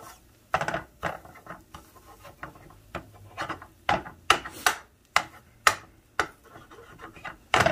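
Green plastic spatula chopping cooked egg into small pieces in a non-stick frying pan: irregular taps and scrapes of the spatula edge against the pan, about a dozen strokes.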